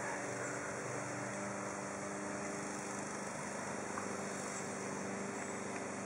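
Honeybee swarm buzzing: a steady, even drone.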